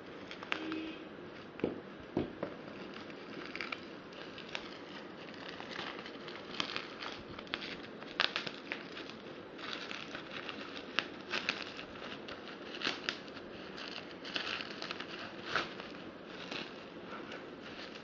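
Packaging being handled by hand: crinkling and rustling, with irregular clicks and taps throughout.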